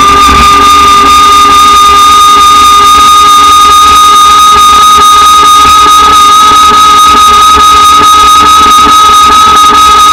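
RAD Power electric bike's motor whining in a steady high tone that creeps slightly upward in pitch, with a low rumble underneath.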